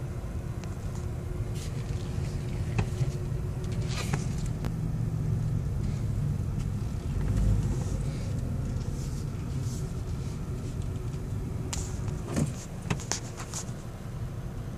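Low engine and road rumble heard inside a car driving slowly, swelling briefly in the middle, with a few short clicks and knocks, several of them near the end.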